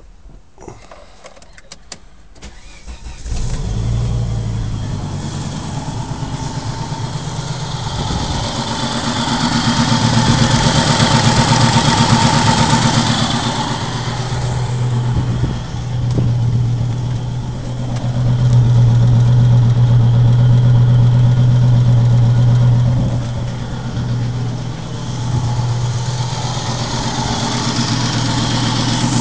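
Volvo 850 five-cylinder engine cranking briefly and catching about three seconds in, then running with a misfire and a loud exhaust leak. Its loudness swells twice. The misfire follows a cylinder head replacement after the timing belt broke, and a neighbour suspects the cam timing is off, perhaps by one tooth on the exhaust camshaft.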